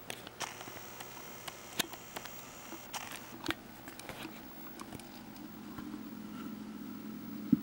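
A mouse scrabbling inside a clear plastic container, its claws making sparse light clicks and scratches on the plastic. A low hum comes up in the second half.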